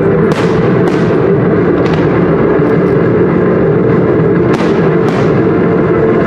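Aerial firework shells bursting with several sharp bangs over loud, steady music accompanying the display.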